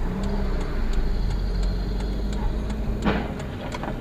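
Steady road and engine rumble heard from inside a moving car, with one sudden sharp bang about three seconds in: a car ahead colliding and spinning out.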